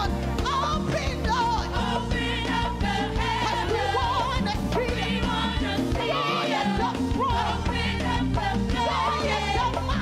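Live gospel music: a group of singers, with wavering held notes, over keyboard, electric bass and drums.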